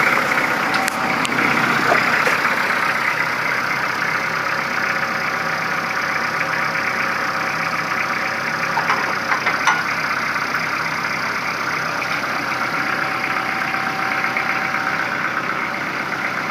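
Kubota L4240HST-3 tractor's diesel engine idling steadily, with a few light clicks over it.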